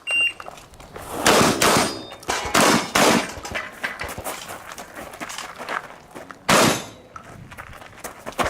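A short high beep right at the start, like a shot timer's start signal, then shotgun shots: several in quick succession in the first three seconds and one more about six and a half seconds in, each ringing out briefly.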